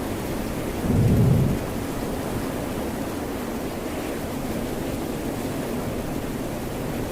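Steady hiss of rain and ocean surf, with one short, deep rumble about a second in.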